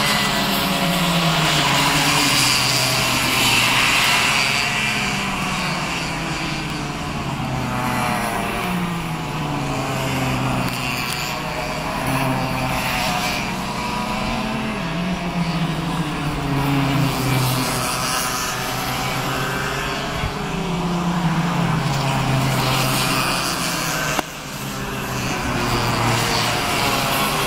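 Several small two-stroke racing kart engines buzzing round the circuit together. Their pitch falls as they slow into the corners and rises again as they accelerate away.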